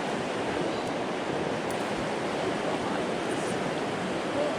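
A high, fast river rushing through rapids: a steady, even wash of water noise.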